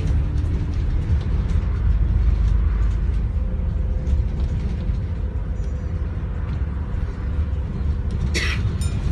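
London double-decker bus in motion, heard from inside: a steady low rumble of engine and road noise on a wet road, with a couple of sharp knocks near the end.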